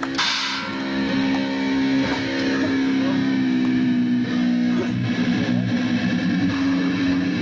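Live rock band playing: loud electric guitar and bass hold ringing chords. A cymbal crash opens it, fading within about half a second.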